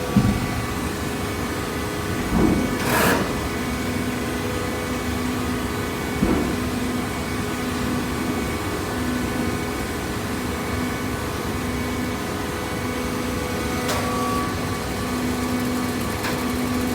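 Hydraulic cardboard baler running: a steady machine hum with a lower tone that pulses on and off, broken by a few knocks in the first six seconds and light clicks near the end.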